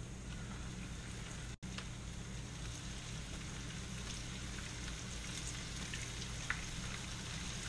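Battered burbot pieces frying in hot vegetable oil in a pan: a steady sizzle with scattered crackling pops.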